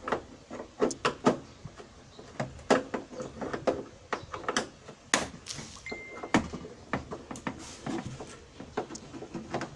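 Irregular clicks and knocks of hands handling the plastic rear cabinet of a Samsung CRT television as it is being opened, with a short high squeak about six seconds in.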